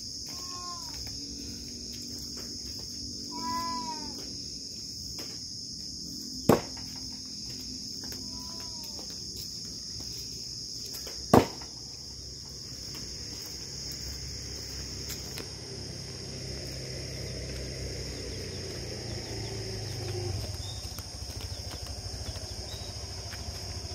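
Two thrown bushcraft axes striking a wooden log target, each a single sharp thud, about five seconds apart. Crickets chirp steadily behind them.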